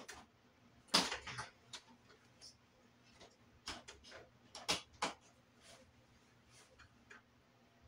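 Shower curtain hooks clicking on the curtain rod and the curtain rustling as it is handled at the top. The clicks are irregular, with the loudest about a second in and again about halfway through.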